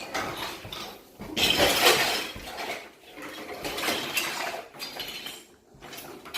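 Hard plastic toys clattering and rattling in a few irregular bouts, as children ride and push toys across a floor scattered with other toys.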